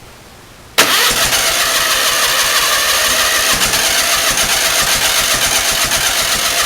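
Onan engine cranked on its starter for about six seconds, trying to fire without catching, then cut off abruptly: a no-start with the timing already set right.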